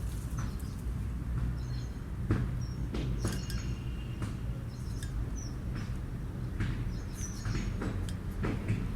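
Scattered plastic clicks of a 3x3 Rubik's Cube's layers being turned, over a steady low hum, with birds chirping in the background.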